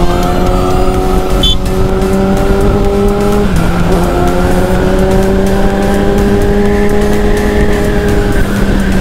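Kawasaki Ninja ZX-6R's inline-four engine pulling under way, its pitch slowly rising. It dips with a gear change about three and a half seconds in, climbs again, and dips once more near the end, over a rushing wind noise.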